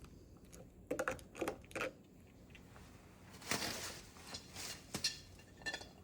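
Small plastic and metal clicks and knocks with a brief scraping rustle as the interior unit of an electronic keypad deadbolt lock is fitted back together by hand.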